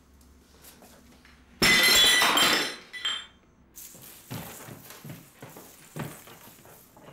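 Glassware and dishes clattering and clinking loudly for about a second, with ringing tones trailing off. A few soft thuds follow.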